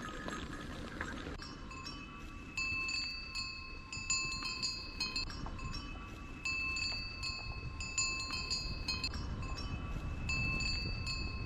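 A high, bell-like chime at fixed pitches ringing in repeated runs that start about every four seconds, over a low rumble of the moving vehicle.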